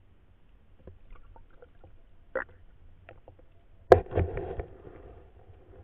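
Underwater sound picked up by a submerged camera: scattered faint clicks and ticks, then a sharp knock about four seconds in, followed by a short cluster of knocks and a brief rush.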